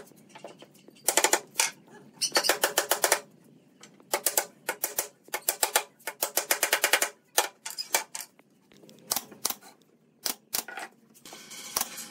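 Pneumatic nail gun firing into a pine frame: quick runs of sharp clicks in the first half, then separate single shots. A hiss comes in near the end.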